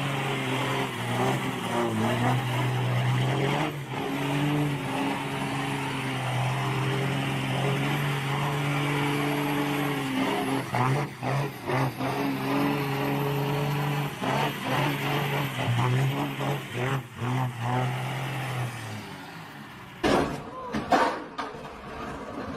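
Heavy vehicle engine running at a steady pitch, with a few brief dips. It cuts off near the end and a few sharp knocks follow.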